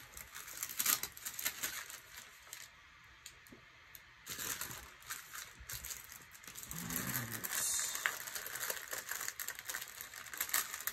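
Crinkling and rustling of a thin translucent paper sheet and sticker sheets being handled, full of small crackles and taps. It goes quieter for a couple of seconds, then gets busier from about four seconds in.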